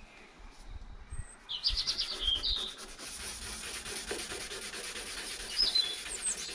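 Sandpaper rubbed by hand over the aluminium boot lid of a Rover P4, a steady run of scratchy back-and-forth strokes smoothing a patch's edges for paint. Birds chirp over it twice, about two seconds in and again near the end, louder than the sanding.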